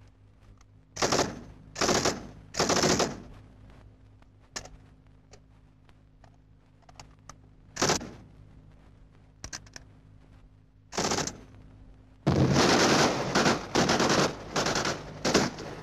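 Small-arms gunfire in a firefight. Three short automatic bursts come about a second apart starting a second in, then scattered single shots, then a long burst of automatic fire lasting over two seconds near the end, followed by a couple of short ones.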